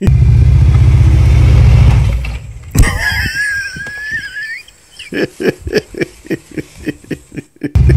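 A cruiser motorcycle engine runs loudly for about two seconds and then fades. A sharp thud comes near three seconds in as the bike goes down on its side, followed by a brief high wavering tone. Then come short, evenly spaced bursts of laughter.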